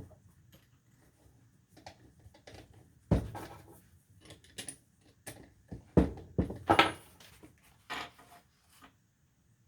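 Irregular clicks, knocks and scraping from drilling a hole by hand in an aged lucite acrylic harmonica slider with a dull bit. The sharp knocks are the loudest part, with the bit's fainter rubbing between them.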